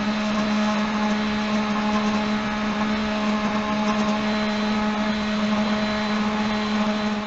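Milling machine running steadily as an end mill engraves a wooden block: a steady motor hum over a broad hiss from the cutting.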